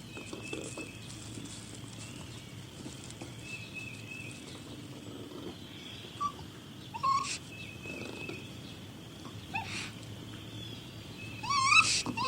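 Raccoon crying: a few short, wavering high calls spaced apart, then a louder run of quavering calls near the end.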